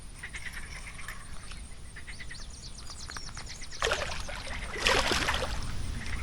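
Water splashing twice, sudden and loud, about four and five seconds in, each splash trailing off over about a second.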